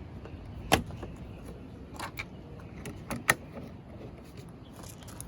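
A handful of sharp clicks and knocks from handling parts of the Jeep: one loud knock about a second in, then two close pairs near two and three seconds in.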